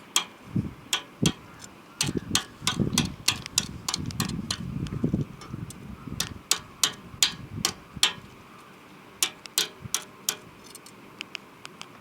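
Repeated sharp metallic taps as slag is knocked off a freshly laid arc-welding bead, irregular at two or three strikes a second, becoming sparser and fainter after about eight seconds.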